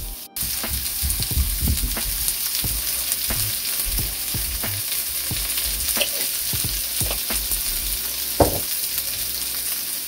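Sliced onions, carrots, bell peppers and thyme sizzling in hot oil in a frying pan, with scattered crackling pops and one sharper pop near the end.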